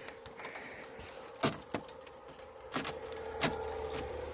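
Handling noise from working a part loose on an old Jeep: a few sharp clicks and knocks of metal and plastic pieces being moved, over a faint steady hum.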